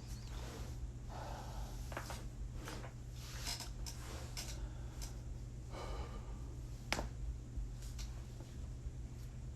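A joint cracking during a manual adjustment: one sharp crack about seven seconds in, with a person's breathing before it. A low steady hum runs underneath.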